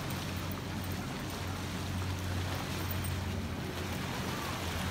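Steady low drone of motorboats and jet skis out on a lake, mixed with wind on the microphone and small waves at the shore.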